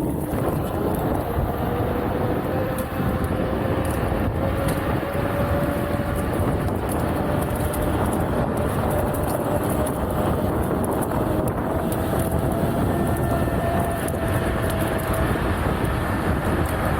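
Kaabo Wolf Warrior 11+ electric scooter underway: the hub motors whine in a single tone that rises slowly as the scooter gathers speed, then fades near the end, over a steady rush of wind on the microphone and tyre noise.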